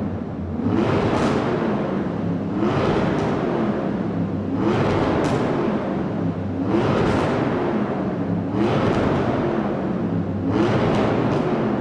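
Engine revved over and over, the pitch rising to a peak and falling back about every two seconds, with no pause between revs.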